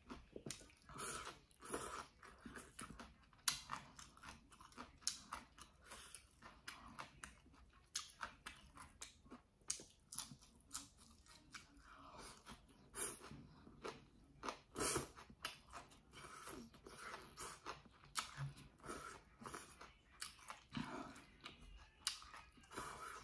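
A person chewing mouthfuls of bibim jjolmyeon, chewy cold noodles with leafy greens. Irregular small crunches and clicks go on throughout.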